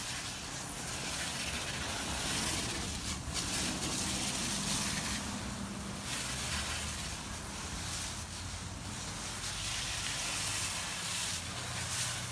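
Spray from a 12-volt soft-wash pump sprayer hitting a wooden fence: a steady hiss that swells and eases as the stream sweeps across the pickets, with a low hum underneath.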